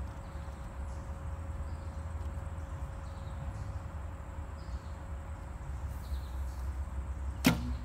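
Mandarin Duck Phantom takedown recurve bow shot near the end: one sharp snap of the string as the arrow is released. Before it, faint bird chirps over a steady low hum.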